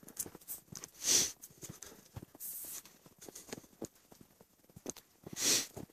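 Footsteps crunching through snow at a walking pace. Two louder rushes of noise come about a second in and near the end.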